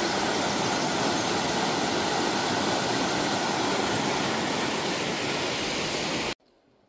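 Rocky mountain creek rushing and tumbling over stones, a steady even rush of water that cuts off suddenly near the end.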